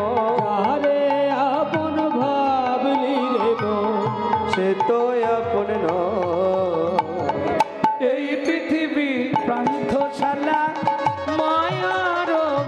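Devotional kirtan music playing without words: a hand drum keeps a rhythm under wavering melodic instruments, with a few sharp percussive strokes in the middle.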